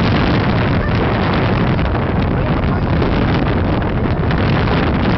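Strong wind buffeting the microphone: a loud, steady rush of noise, heaviest in the low end.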